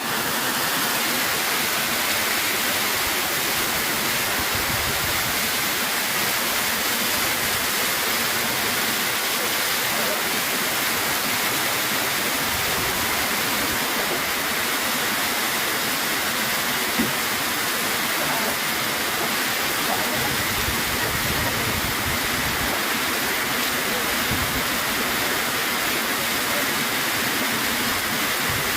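Heavy rain falling, an even, dense hiss that holds steady throughout.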